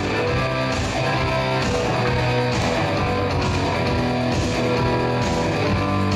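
Guitar music with strumming and a steady beat.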